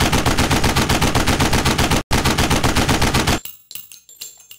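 Rapid automatic gunfire, about ten shots a second, with a brief break about two seconds in, stopping abruptly about three and a half seconds in. Scattered faint metallic clinks and ringing follow.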